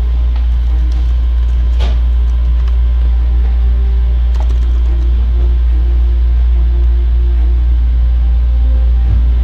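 A loud, steady low drone, an audio fault that the uploader admits to in the recording, dominates throughout, with faint suspenseful music underneath.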